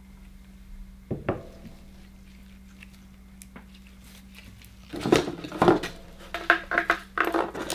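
A small silver bowl of sand is set down on a wooden cutting board about a second in, then a run of clattering knocks and handling noises on the board from about five seconds in, over a faint steady hum.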